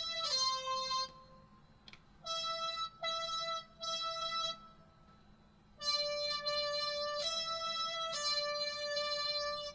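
Roland Aerophone Mini digital wind instrument playing a halting melody one note at a time. A note sounds at the start, then after a pause come three short notes, and after another pause a run of longer held notes.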